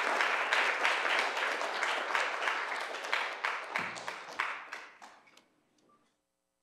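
Audience applauding, the clapping thinning out and dying away over about five seconds, then near silence.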